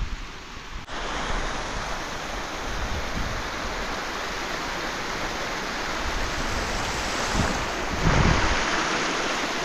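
Steady rushing noise that starts abruptly about a second in and swells a little near the end.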